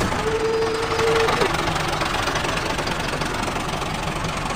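Tractor engine running steadily with a fast, even knock. A brief steady whine sits over it for about the first second and a half.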